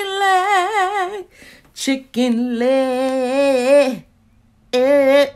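A woman singing with a wide, wavering vibrato: one note, then a lower note held for about two seconds, and after a short break another held note. Off key, by her own account.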